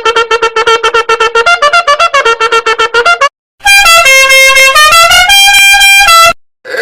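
Two meme sound effects back to back. First comes a rapid staccato run of pitched notes, about eight a second, lasting about three seconds. After a short break comes a loud horn-like melody of held notes stepping up and down in pitch.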